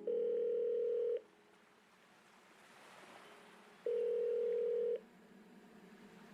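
Telephone ringing tone heard down the line: two long, steady beeps of the same pitch, each about a second long and roughly three seconds apart.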